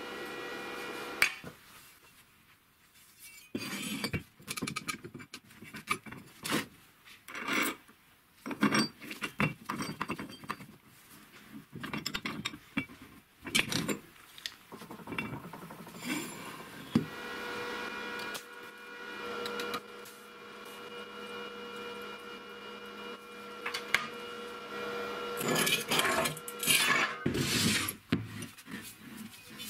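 Steel workpieces handled on a wooden workbench: a square steel tube and a shock absorber rod knocking and clinking against each other and the bench again and again. The metal rings at times, with a ringing tone held for several seconds in the second half.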